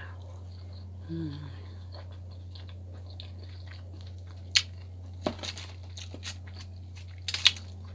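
Close-up chewing of a roasted Brussels sprout, soft wet mouth sounds with a brief closed-mouth hum about a second in. Several sharp clicks come in the second half, over a steady low hum.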